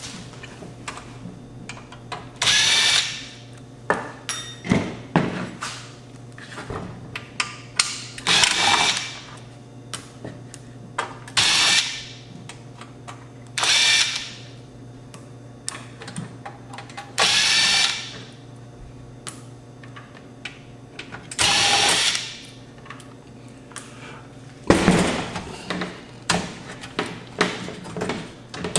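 Cordless drill-driver running in short bursts of about a second each, about seven times, backing out the back-panel screws of an AV receiver, with small clicks of handling and loosened screws between the bursts.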